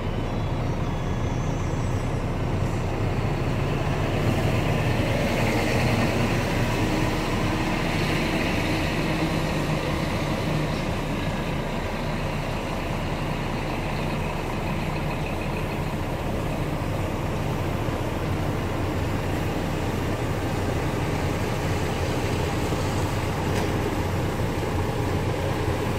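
Scania P410 truck's diesel engine idling steadily at about 600 rpm, heard from inside the cab.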